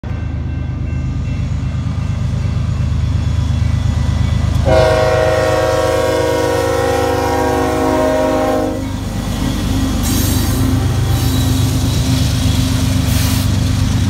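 Union Pacific GE AC45CCTE (GEVO) freight locomotive passing close by with a steady low rumble of engines and rolling train. About five seconds in, its Nathan K5HL raised-letter horn sounds one long blast of about four seconds, and a couple of brief hissing swells follow near the end.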